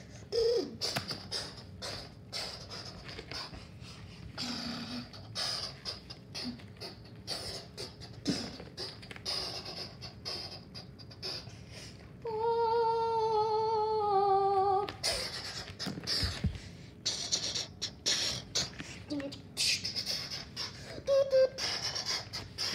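A child making mouth sound effects for toy planes fighting: a stream of quick clicking, hissing spit-like noises. About twelve seconds in comes one held, wavering hum of nearly three seconds that slowly falls in pitch.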